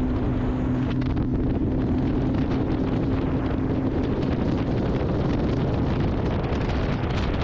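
Bass boat under way on a hole-shot run, its four-stroke Mercury outboard humming steadily. The hum fades out after a few seconds under heavy wind buffeting the microphone and the rush of the hull over the water.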